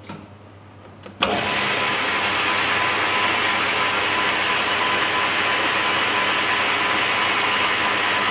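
Workshop lathe switched on about a second in and running at a steady speed, ready to skim the face of a brass cue joint; a steady whirring hiss with a faint even whine.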